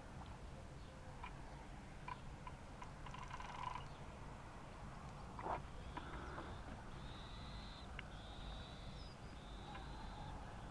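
Quiet outdoor ambience with a steady low rumble and scattered small clicks, a single sharp knock about halfway through. Near the end a bird calls three times, a flat high note each time.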